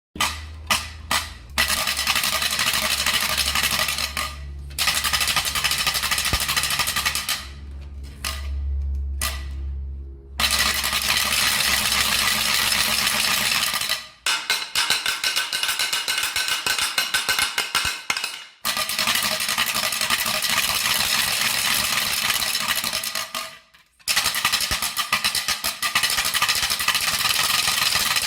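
A carraca, a wooden ratchet rattle, spun in a series of runs of rapid, dry clacking, each a few seconds long with brief pauses between. A few single clacks come first.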